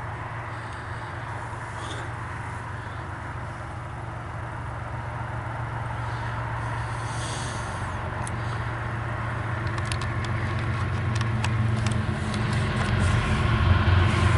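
Diesel locomotive of an approaching CSX intermodal freight train, a steady low engine drone that grows louder throughout. A run of sharp clicks comes in from about ten seconds in.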